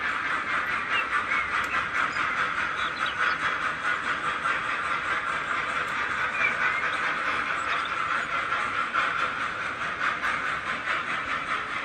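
HO scale model freight train of hopper wagons rolling along the track: a steady metallic rolling noise with quick, even clicking of the wheels, about four clicks a second.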